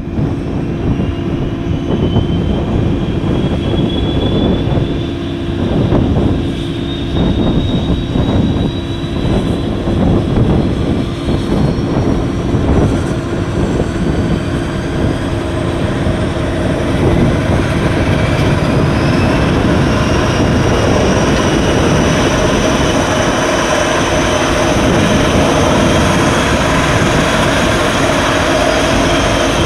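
Dornier 328 turboprop engine starting: a turbine whine climbs slowly and steadily in pitch over a steady hum and a low rumble.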